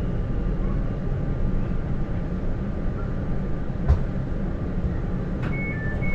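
Inside a standing passenger train: a steady low hum from the train's equipment, with a short knock about four seconds in. From about five and a half seconds an alternating two-note beeping starts, the train's door warning.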